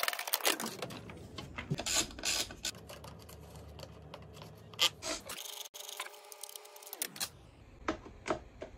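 Hands swapping a dirt bike's air filter: rubbing and scraping of the filter and airbox parts with scattered clicks and knocks, broken by a couple of abrupt cuts.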